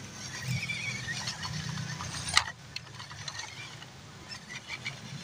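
Small electric motors and plastic gearboxes of 1/12-scale RC crawlers running as they climb a dirt slope, with scattered small ticks of tyres on dirt and pebbles. One sharp click about two and a half seconds in.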